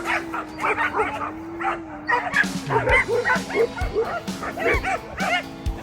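Several dogs barking and yipping excitedly in quick, repeated short barks, worked up to chase a flying drone. A steady hum that wavers slightly in pitch runs underneath.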